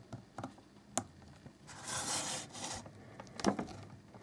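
Plastic figure parts being handled: a couple of sharp clicks and a short scraping rub as an alternate arm is worked into the PVC figure's shoulder joint.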